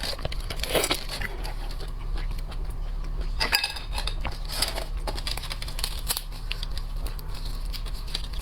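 Shrimp and crab shells being cracked and peeled by hand: irregular crackling, clicking and tearing, over a steady low hum.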